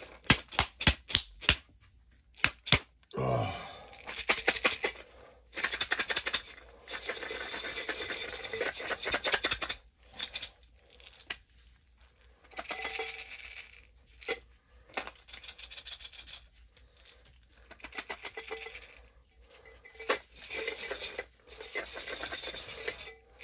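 Colonised corn grain spawn rattling inside a glass mason jar as it is shaken hard to break up the mycelium, in several bouts, with a quick run of sharp knocks at the start.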